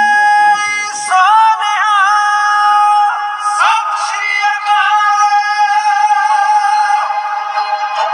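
Music: a synthesized voice-like melody holding long, high notes that slide up into each pitch and change every second or two.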